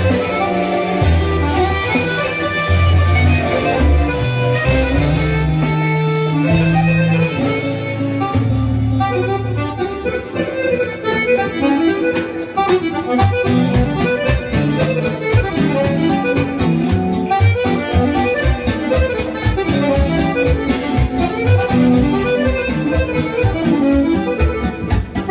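Button accordion playing a fast, busy melody live, accompanied by an arranger keyboard. The keyboard holds long low bass notes at first, then about halfway through switches to a fast, choppy rhythmic backing.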